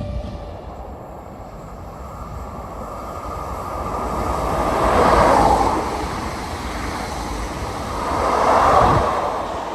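A train passing through the station, its wheels and running gear making a steady noise that swells to a peak about five seconds in and again near the end.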